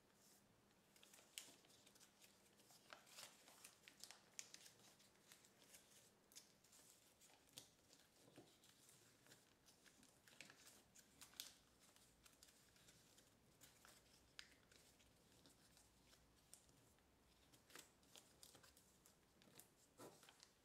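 Faint rustling and crinkling of kraft paper being folded and creased by hand, with many short, scattered crackles.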